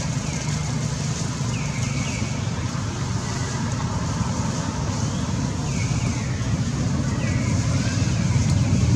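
Steady low outdoor rumble, rising slightly near the end, with short high falling chirps recurring every second or so.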